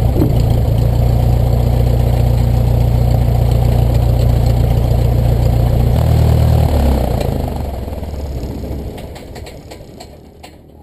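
Cessna 172's piston engine and propeller idling steadily, then shut down about six seconds in: the engine note drops and dies away over the next few seconds as the propeller winds down, leaving a few faint clicks.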